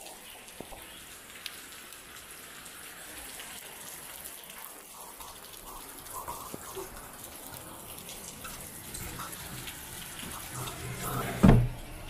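Steady hiss of rain falling and water dripping on wet concrete. A single loud thump comes near the end.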